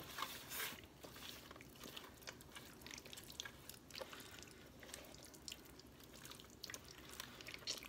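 Hands massaging a wet turmeric and mustard-oil marinade into a raw whole chicken: faint, irregular wet squishing and small clicks.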